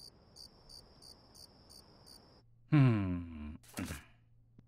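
Night-time crickets chirping, a thin high trill pulsing about three times a second. It stops, and a cartoon character gives a drawn-out groan that falls in pitch, followed by a short knock.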